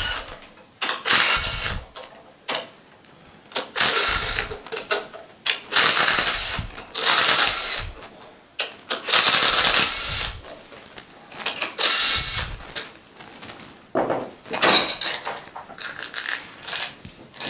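Ratchet wrench clicking in repeated bursts of about a second each, about eight times, as the head bolts of a Milton Roy G Series dosing pump are backed out.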